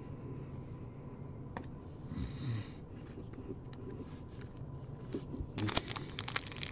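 Trading cards being slid and flipped through by hand, with faint ticks, and a short sniff about two seconds in. Near the end, a foil card pack wrapper crinkles loudly as it is picked up and handled for opening.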